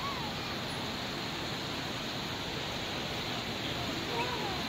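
Steady rushing hiss of open air heard from a chairlift seat, even and unbroken, with a faint distant voice briefly about four seconds in.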